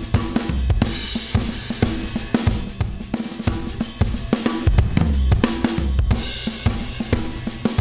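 A recorded drum kit playing a steady groove, with kick, snare, hi-hat and cymbals. It is played back through a 5020 stereo FET limiter on the drum bus and is being compressed.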